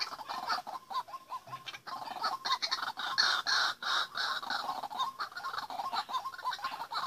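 White-breasted waterhen calling: a fast run of short repeated croaking notes, swelling louder and harsher for a second or two midway, then settling back into the steady repeated notes.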